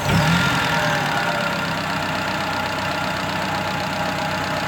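Suzuki Vitara's G16B 1.6-litre four-cylinder petrol engine just started, its revs settling within the first second into a steady idle, with engine flush added to the oil. The engine has low compression in cylinder four and a faulty spark plug, which the owner blames for its coughing and spluttering.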